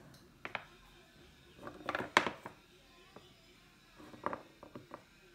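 Small rolls of washi tape being handled and set down on a desk: a series of light taps and clicks in two groups, about two seconds in and again past four seconds, the sharpest click about two seconds in.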